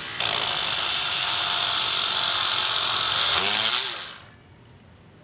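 Cordless drill running at full speed with its bit cutting into a hand-held piece of wood. It runs steadily for about four seconds, then winds down with a falling whine and stops.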